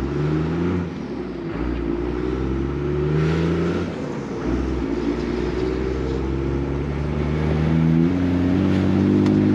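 The 12-valve Cummins 5.9 L inline-six turbo diesel of a 1997 Dodge 2500 is pulled hard at full throttle through the NV4500 manual gearbox. Its pitch climbs, drops back at each of about three gear changes, then climbs again.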